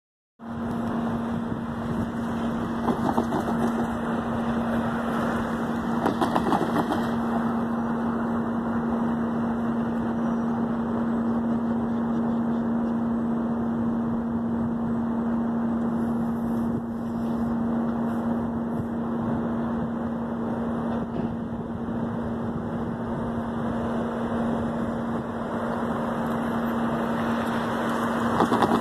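An engine running steadily, a constant low hum over an even rushing noise, with a few brief louder rattles around 3 and 6 seconds in.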